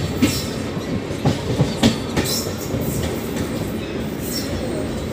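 Indian Railways passenger train running along the line: the steady rumble of the moving coach, with wheels clacking sharply over rail joints several times in the first half.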